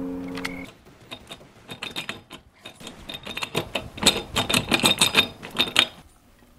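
Irregular run of small, hard clicks and rattles, sparse at first, then denser and louder in the second half, stopping about a second before the end. A held musical chord fades out at the very start.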